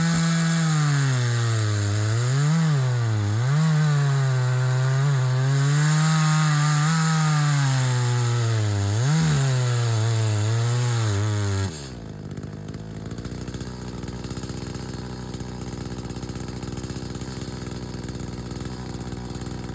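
Chainsaw running at full throttle through a cut, its pitch dipping and recovering several times as the chain bogs under load. About twelve seconds in the throttle is released and it drops abruptly to a steady idle.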